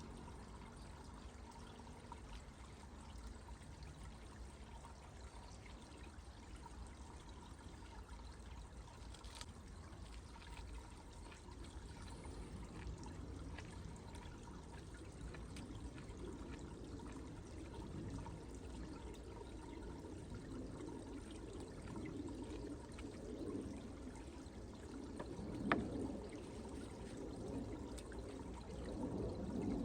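Water trickling and pouring steadily, growing louder over the second half, with one sharp click about 26 seconds in.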